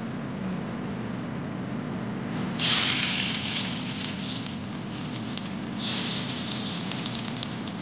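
Food sizzling and crackling in hot oil in a pan, starting suddenly about a third of the way in, easing, then flaring again, over a steady background hum.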